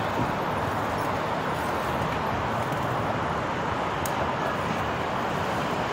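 Steady traffic noise: a continuous, even roar with no distinct events.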